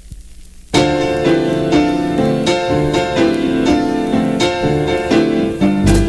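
Faint hiss, then a piano starts an instrumental intro just under a second in, playing chords and a melody. Low bass notes join right at the end.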